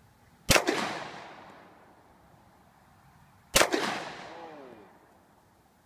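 Two pistol shots from a Glock, about three seconds apart, each followed by a long echoing tail that fades over a second or more.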